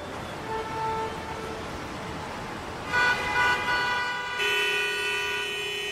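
Heavy street traffic: a steady hum of vehicles with several car horns honking, short toots early on, a louder cluster of horns about three seconds in and one long held horn over the last second and a half.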